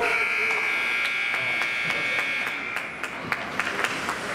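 Ice rink scoreboard buzzer sounding one steady buzz of nearly three seconds, the signal that the period has ended. Scattered sharp clicks follow near the end.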